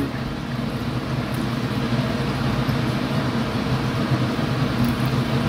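A steady low hum with an even rushing noise, like a machine or fan running.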